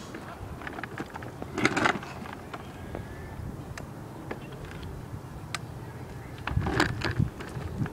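Kids' battery-powered ride-on toy ATV rolling slowly over asphalt: a steady low hum from its small electric drive with scattered crackles and clicks of its hard plastic wheels on the pavement. Two louder rough scuffs come about a second and a half in and again near the end.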